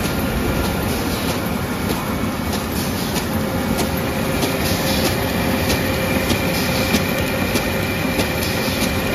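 NFY-A800 automatic pre-coating film laminating machine running at speed: a steady mechanical rumble with a constant whine and a quick run of repeated clicks as sheets feed through the rollers and disc-knife slitter.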